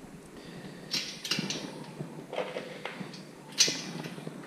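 Bolts and washers clinking and tapping against a metal bike-carrier frame as hardware is fitted by hand: a few light metallic clinks with handling noise between them, the sharpest one about three and a half seconds in.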